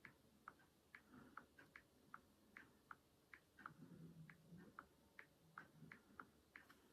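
Faint, quick clicks of an iPhone 13 Pro Max's on-screen keyboard as a Wi-Fi password is typed in, about three a second.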